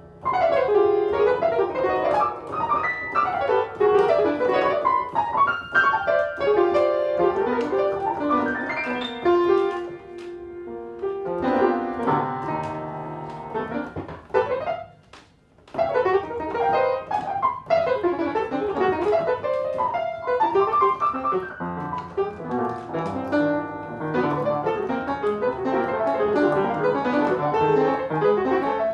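Solo piano played with both hands in dense, busy runs of notes, breaking off briefly about halfway through before the playing resumes.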